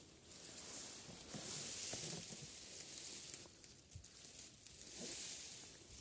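Dry grass stems rustling and swishing as someone pushes through them on foot, in two long swells, with a few soft thumps underneath.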